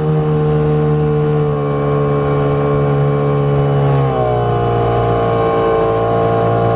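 Small outboard motor running a jon boat along at a steady pitch, then throttled back about four seconds in, its pitch sliding down and settling into a lower steady drone as the boat slows.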